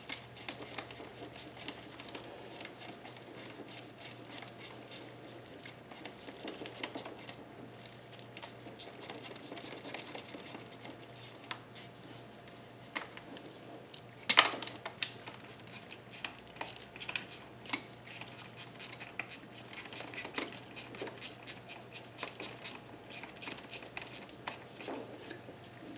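Metal hand tools and parts clinking and tapping against an engine, with scattered small clicks and one louder metallic clank about fourteen seconds in.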